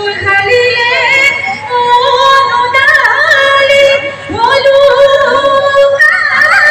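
A woman singing a Bihu song over instrumental accompaniment, with held notes and wavering, trilled ornaments. There is a short break a little past the middle, and then the next phrase sweeps up into a held note.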